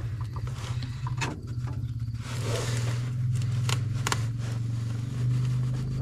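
Sharp metal clicks and scrapes of a pry bar working at the John Deere D's stuck exhaust valve, over a steady low machine hum.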